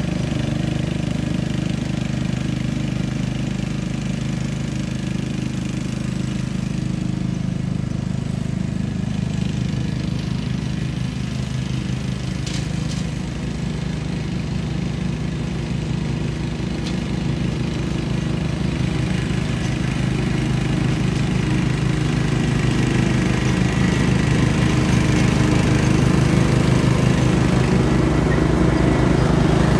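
Simplicity Coronet rear-engine riding mower's engine running steadily while it mows. It grows louder over the last third as the mower comes closer.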